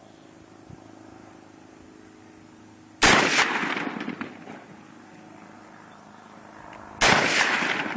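Two AR-15 rifle shots about four seconds apart, each a sharp crack followed by about a second of echo dying away.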